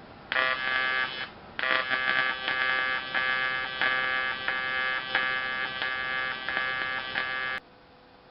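AC TIG welding arc on an aluminium intake manifold buzzing. It strikes just after the start, breaks off briefly about a second in, then runs steadily until it cuts off suddenly near the end.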